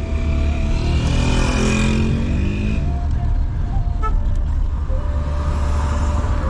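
Car driving slowly, heard from inside the cabin: a steady low engine and road rumble, with the engine note swelling for a couple of seconds about a second in.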